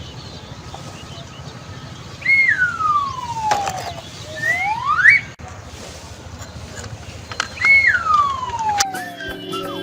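A whistle-like, siren-style tone that slides slowly down in pitch, then quickly back up, twice, over a low steady hum.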